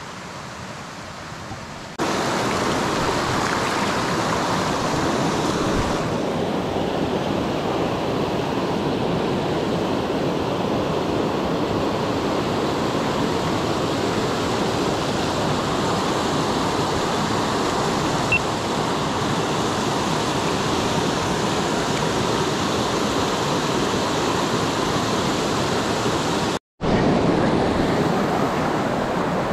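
Steady rushing of a fast-flowing mountain creek over rocks, an even, unbroken noise that cuts out for an instant near the end.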